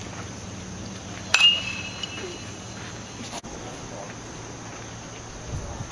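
A pitched baseball striking a metal bat: one sharp crack about a second in, with a brief high metallic ping ringing after it.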